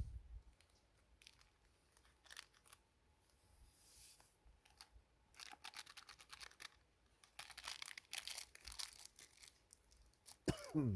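Bursts of crinkling and rustling, like something being handled, with quiet gaps between them and a short falling swoosh near the end.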